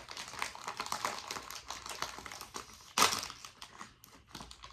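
Plastic snack bag crinkling as it is handled and opened, a dense crackle with one louder crackle about three seconds in.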